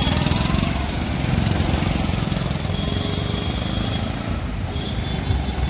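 Auto-rickshaw's small single-cylinder engine chugging close by, with general road traffic behind it.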